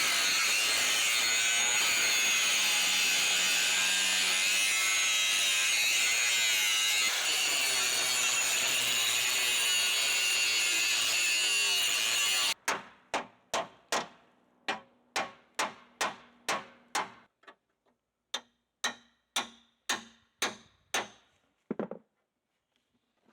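Angle grinder running steadily against metal, with a hiss of grinding, cutting off suddenly about halfway through. It is followed by a quick run of about twenty sharp, ringing hammer blows on metal, two to three a second, which stop shortly before the end.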